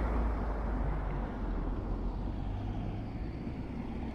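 Road traffic going past: a low engine and tyre rumble that slowly fades and picks up a little near the end.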